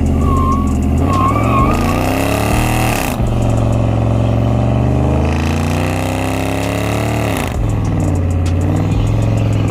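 Dodge 392 Scat Pack's 6.4-litre HEMI V8 accelerating hard through the gears: the revs climb, fall sharply at an upshift about three seconds in, climb again and fall at a second upshift about seven and a half seconds in.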